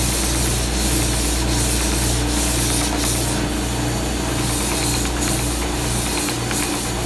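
Stationary sander and shop vacuum running steadily while a wooden box is pressed to the abrasive. The rubbing swells and fades about twice a second with back-and-forth strokes.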